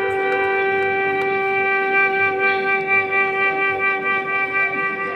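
Music: a melody instrument holding one long, steady note.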